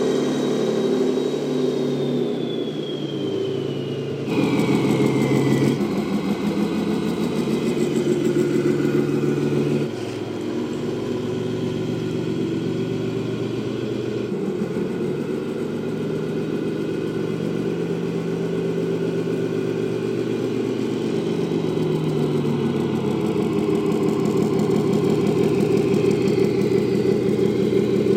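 Simulated diesel truck engine from a 1/14 Tamiya Scania RC truck's sound module, its revs rising and falling as the model is driven. A high whine falls in pitch a few seconds in.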